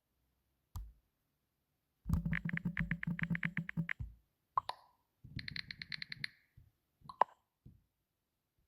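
Phone ringtone sound effects: a fast-pulsing electronic buzz for about two seconds, a short plop-like chirp, a second, shorter pulsing buzz, then another sharp chirp.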